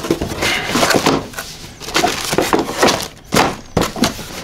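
Cardboard box flaps being lifted, bent back and handled: irregular scraping and rustling with a few sharp knocks.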